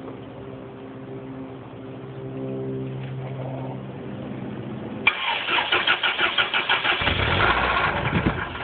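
Chrysler LeBaron engine being cranked over: after a steady low hum, a loud rhythmic chugging of about five or six beats a second starts suddenly about five seconds in and gets deeper near the end. The engine has a rod knock.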